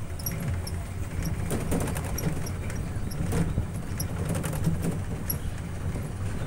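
Open-sided passenger shuttle cart riding over brick paving: a steady low rumble with frequent small rattles and clicks from the body and fittings.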